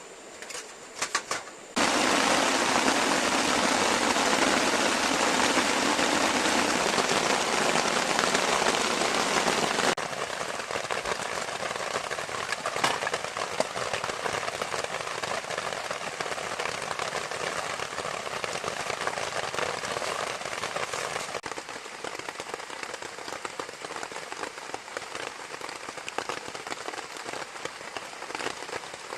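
Duck breast sizzling and crackling in a hot carbon steel frying pan, starting suddenly about two seconds in after a few sharp clicks. The sizzle is loudest at first, then drops to a quieter level in sudden steps, once about ten seconds in and again about twenty-one seconds in.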